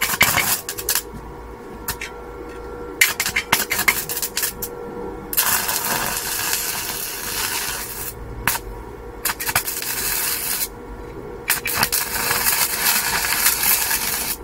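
Stick (MMA) welding arc struggling on dirty steel: sputtering, crackling strikes that keep dying out, then burning with a steady crackling hiss from about five to eight seconds in and again for the last couple of seconds, over a faint steady hum. The arc only barely holds because the welder, set to 120 A, is delivering only about 70 A.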